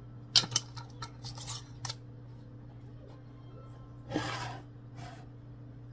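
Metal canning lids and screw bands on glass mason jars: two sharp clicks about half a second in and a few lighter clicks, then a short rasping scrape about four seconds in as a band is turned down on the jar's threads.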